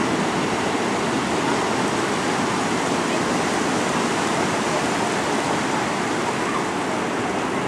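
Steady rush of breaking surf and foaming whitewater.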